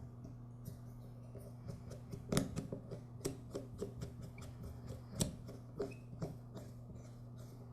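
Irregular light metallic clicks and taps of a small screwdriver and carburetor parts being handled while the main jet is screwed into a lawn mower carburetor, with two sharper clicks about two and a half and five seconds in, over a steady low hum.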